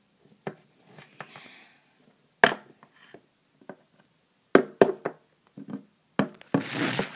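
Small plastic toy pony figures being handled and knocked down onto a hard tabletop: several sharp, separate clicks and knocks spread out, with a short rustling scrape near the end.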